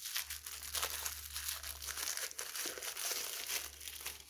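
Crinkly wrapping of a small surprise toy package being crumpled and torn open by hand, a dense irregular crackle throughout.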